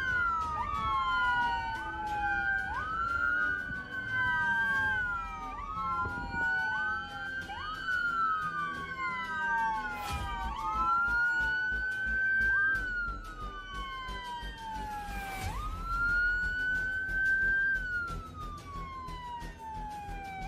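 Police car sirens wailing. At first two or more sweep out of step, each rising quickly and falling over a couple of seconds. From about ten seconds in a single siren carries on with slower sweeps of about five seconds each.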